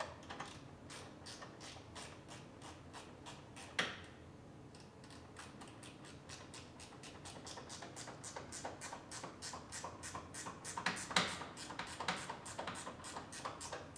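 Hand ratchet clicking in quick, even runs as door hinge bolts are turned in. The clicks come faster and louder in the second half, with a louder knock about four seconds in and another near eleven seconds.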